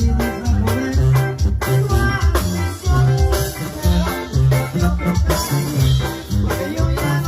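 Upbeat dance-band music with a driving bass line and a steady beat.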